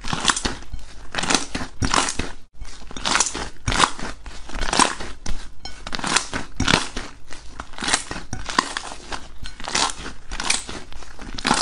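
Purple slime being kneaded and squeezed by hand in a ceramic bowl, giving repeated crackly squishes about once or twice a second, with a brief break just after two seconds in.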